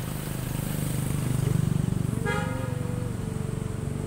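A motor vehicle passing on the street, its engine rumble swelling and then easing, with one short horn toot a little after two seconds in.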